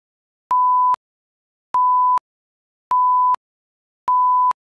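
Electronic beep tone, one pure steady pitch, sounding four times for about half a second each, roughly once every second and a bit, with dead silence between the beeps.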